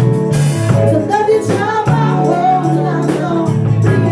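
A band playing a song, with singing over held bass notes and a regular drum beat.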